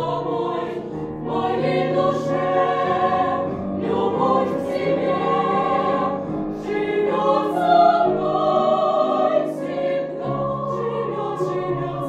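A girls' vocal ensemble singing in harmony: long held phrases with brief breaks between them.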